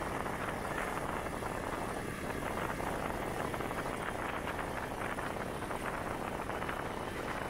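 Honda Titan 125 motorcycle's single-cylinder four-stroke engine running steadily while riding along a dirt road, mixed with steady wind and road noise.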